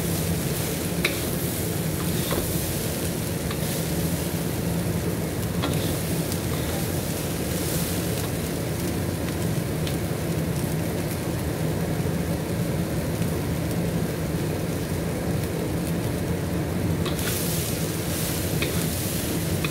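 Chickpeas sizzling and frying in a hot wok while a wooden spatula stirs and scrapes them, with scattered light clicks of the spatula against the pan over a steady low hum. The sizzle grows brighter near the end.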